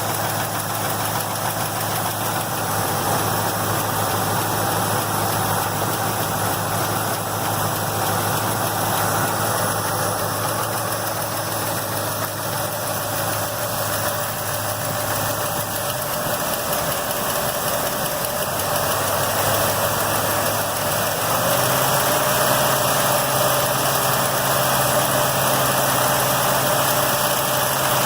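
Car engine idling with valve lifter noise, the sign of a noisy or worn hydraulic lifter. The idle steps up slightly about 21 seconds in.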